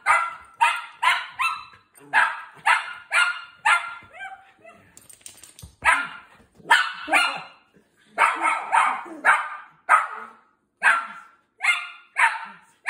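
Miniature schnauzer puppy barking in quick runs of sharp, high-pitched barks, about two a second, with a few short pauses. This is insistent scolding barking aimed at its owner, who has just come back after leaving the puppy alone for four hours.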